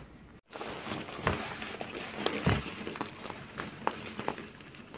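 Handling noise of a sewn fabric-and-PVC-sheet bag being turned over and worked by hand: faint rustling with scattered, irregular clicks and knocks, the loudest about a second and two and a half seconds in.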